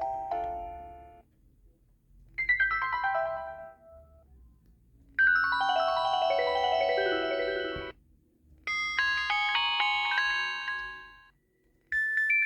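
Built-in ringtones of a Bind.u HD3010 mobile phone, played one after another as short electronic melodies with brief gaps: a tune fading out, a quick falling arpeggio, a longer run of falling notes, a busier chiming tune, and the start of another near the end.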